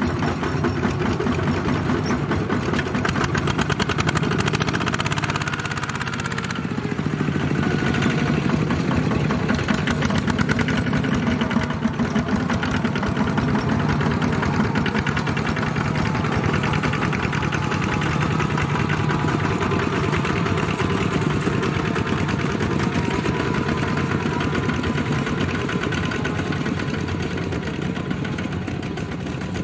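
Several two-wheel walking tractors' single-cylinder diesel engines running together with a fast, steady chugging, hauling trailers of rice sacks along a dirt track.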